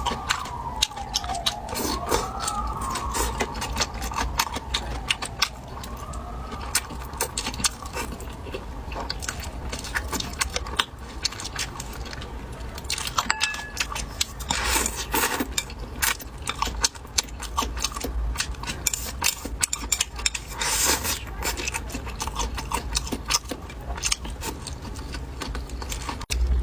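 Close-up eating sounds: a steady run of sharp clicks and knocks of chewing, biting and chopsticks on dishes, over a low hum. A wavering tone rises and falls several times over the first seven seconds.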